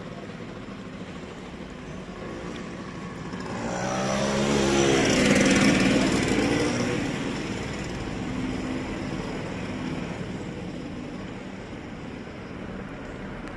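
A motor vehicle passing by on the street, its engine growing louder to a peak about halfway through, dropping in pitch as it goes past, then fading away.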